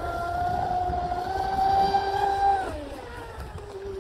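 High, steady whine of a fast electric RC boat's brushless motor (a TP Power 4060 on 4S) running at speed. The pitch climbs a little, then drops away a little under three seconds in and carries on lower and fainter. Low wind rumble on the microphone lies underneath.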